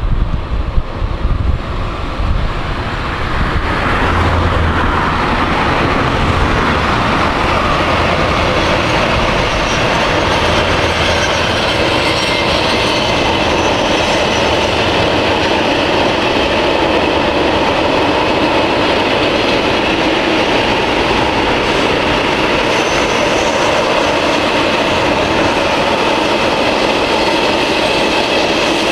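Long freight train of covered wagons rolling past on the rails: a steady rumble and clatter of wheels that builds in about three seconds in and holds even. Before that, wind buffets the microphone.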